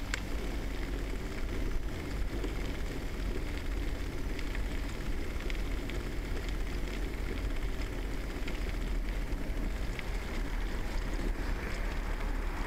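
Steady rumble of wind on a bicycle-mounted microphone and the tyre rolling along a paved footpath, with a few faint clicks and rattles from the ride.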